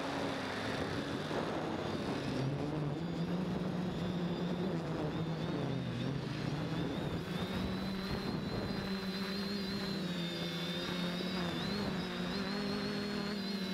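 Quadcopter motors and propellers whirring, heard through the drone's own onboard camera. The steady hum shifts up and down in pitch as the motors change speed, and a higher wavering whine joins about halfway through.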